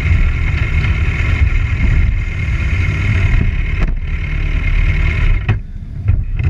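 Motorcycle engine running at low speed close to the camera, a steady low rumble, settling to idle as the bike comes to a stop. A couple of sharp clicks come in the second half.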